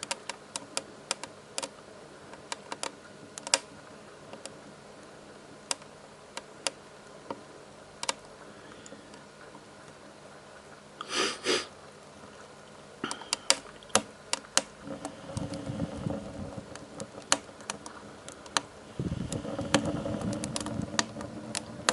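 Kindling sticks crackling and popping irregularly as the fire catches in a wood-burning rocket stove. In the second half a low rushing rumble comes in and grows louder near the end as the burner starts to draw.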